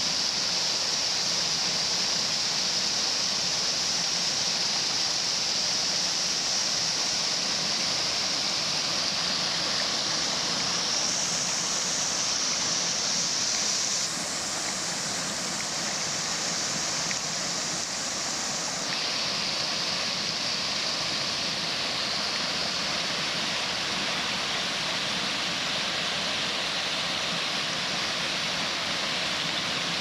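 Mountain stream cascading over rocks in a small waterfall: a steady rush of white water, slightly quieter for a few seconds around the middle.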